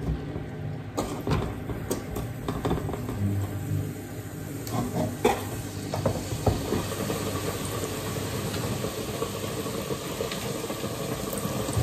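Battered croissant frying in the hot oil of a deep fat fryer: a steady sizzle that grows fuller about six seconds in. A few light clicks come in the first half, as a spatula touches the fryer.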